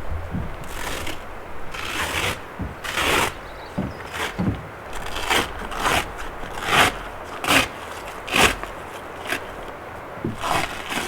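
A series of short scraping, rustling sounds, about a dozen spaced irregularly, roughly one a second.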